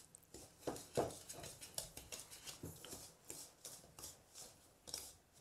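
Wooden-handled wire hand whisk stirring crumbly cookie dough in a mixing bowl: quiet, irregular scraping and knocking strokes, about three a second.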